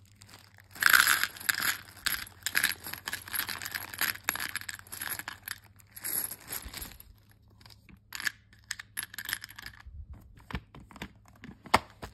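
Small plastic safety eyes (14 mm) pouring out of a zip bag into a plastic compartment box: a dense clattering rattle for about six seconds, then scattered single clicks as a few more drop in.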